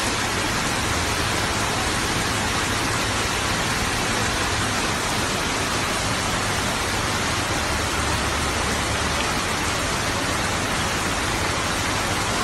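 Fast, muddy floodwater rushing down a street as a torrent: a steady, unbroken rushing noise.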